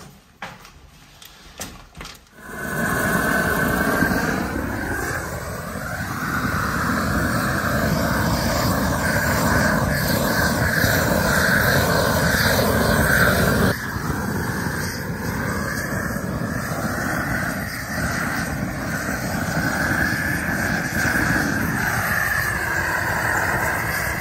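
Handheld gas burner lit about two and a half seconds in, after a few faint clicks, then burning with a loud steady rush as its flame is played over wooden shelf boards to char their surface. The tone of the rush slowly shifts up and down as the flame moves, and it stops abruptly near the end.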